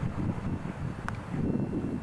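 Gusty wind buffeting the microphone, rising and falling, with a single sharp click about a second in. The distant diesel freight train is at most faintly under the wind.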